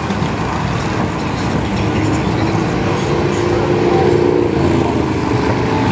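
A stream of large touring and cruiser motorcycles passing one after another, their engines making a steady, dense rumble, with one bike's engine note standing out briefly in the middle.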